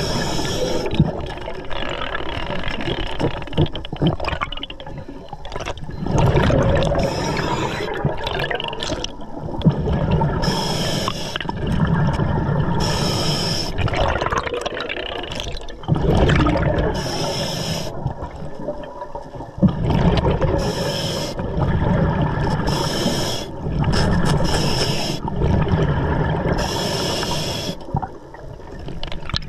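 Scuba diver breathing through an Atomic regulator underwater. Each inhale is a short hiss, every two to three seconds, and between them the exhaled bubbles make a rumbling gurgle.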